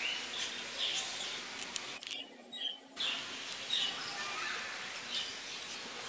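A flock of budgerigars chattering and chirping, many birds at once in a continuous twittering, with a brief dip of under a second about two seconds in.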